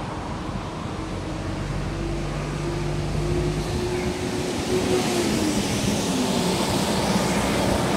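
A bus approaching on the road: a steady engine hum, then from about halfway the tyre and road noise grows louder and the engine note drops as it slows.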